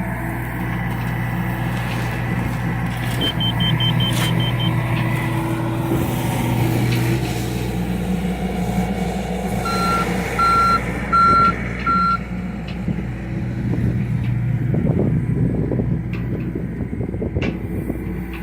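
Diesel engine of a John Deere excavator running steadily under work. A backup alarm beeps four times, evenly spaced, about ten seconds in, and a quick run of short high pips comes a few seconds in.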